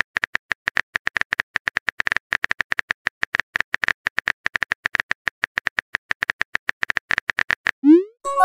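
Phone keyboard typing clicks from a texting app, a rapid run of short taps, several a second, as a message is typed. Near the end a short rising swoosh as the message is sent.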